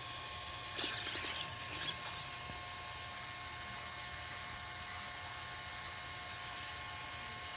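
Sony Aibo ERS-111 robot dog's leg and neck joint motors and gears whirring in a few short bursts about a second in as it shifts its stance, over a steady faint hum.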